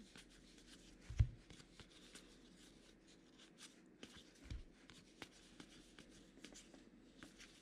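Gypsy Queen baseball cards being handled and flipped through by hand: faint rustling with many small clicks of card stock. Two soft low thumps, about a second in and again about four and a half seconds in.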